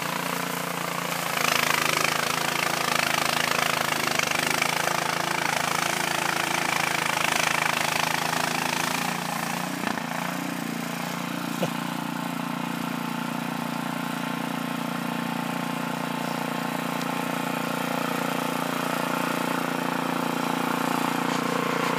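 Cub Cadet two-stage snowblower running steadily, its engine drone mixed with the hiss of snow being chewed up and thrown out the chute. About halfway through, the snow hiss fades and the engine note rises a little, then holds steady.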